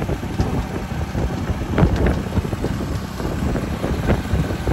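Wind buffeting the microphone of a moving motorcycle, a steady low rumble, with the motorcycles' engine and road noise underneath and a couple of brief knocks.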